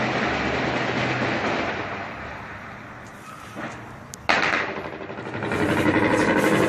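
Distant gunfire echoing across town: a sharp report with a long decaying echo a little past halfway, then a louder stretch of rapid rattling shots near the end, over a steady rushing noise that fades early on.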